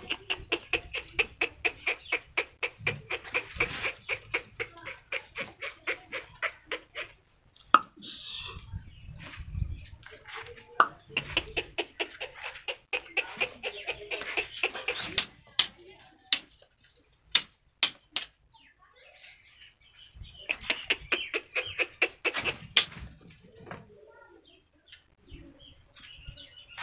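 Fowl clucking in quick, evenly repeated notes, in runs of several seconds with short pauses between, and a few sharp clicks about halfway through.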